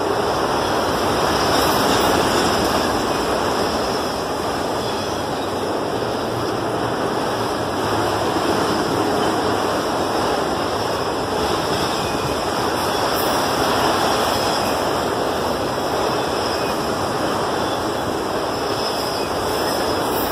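Freight train cars rolling past at close range, steel wheels on the rails making a steady, loud rushing rumble that swells slightly now and then.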